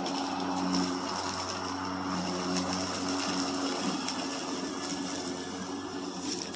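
Small petrol lawn mower engine running steadily with an even hum.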